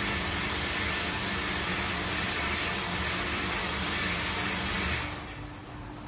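Moyer Diebel 1000HT commercial dishwasher running: a steady rush of water spray and pump noise over a low hum, which stops abruptly about five seconds in.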